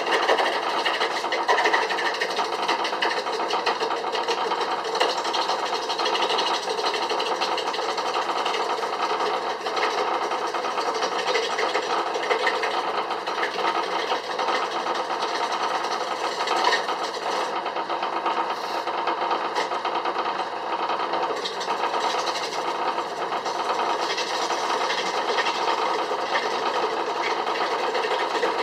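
Antique Chicago Machinery Exchange #2 wood lathe running steadily, its motor drive giving an even hum while a hand-held turning tool scrapes and cuts a spinning piece of wood.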